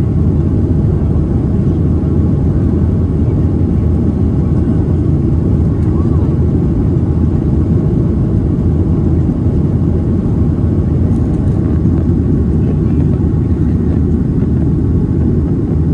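Steady low rumble of an airliner cabin in flight, with engine and air noise at an even level throughout.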